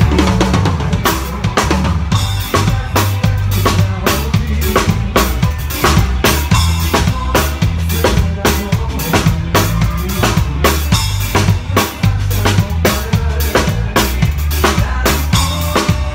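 A DW Design drum kit with Zildjian cymbals played live in a busy, driving beat: kick drum, snare hits and cymbals close-miked and loud, over a band's low bass notes.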